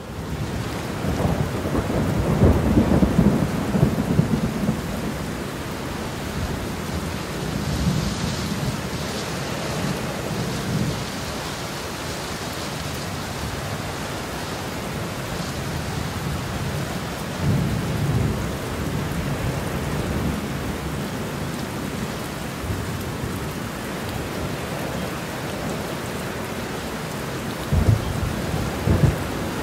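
Steady rain with low rolls of thunder swelling several times, the loudest early on and near the end. No tattoo-machine buzz stands out.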